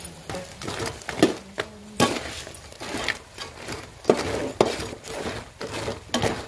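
Long metal ladle stirring whole cooked crabs in a large aluminium pot of gravy, the ladle and crab shells clacking and scraping against each other and the pot, with irregular sharp knocks.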